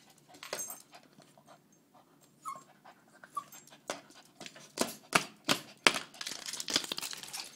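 A dog panting, with a couple of short high whimpers in the first half and scattered clicks and knocks that come louder and thicker in the second half.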